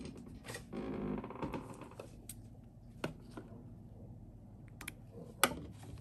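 A household sewing machine runs for about a second near the start as it finishes a top stitch. A few sharp scissor snips follow as the thread is cut, the loudest one near the end.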